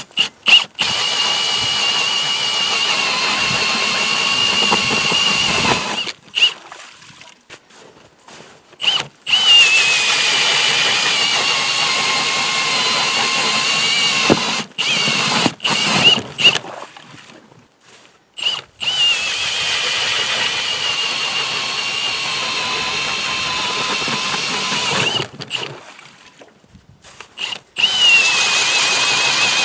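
Motor-driven ice auger boring into ice on freshly hand-sharpened blades: a steady high-pitched motor whine. It runs in several stretches of a few seconds each, stopping and starting again.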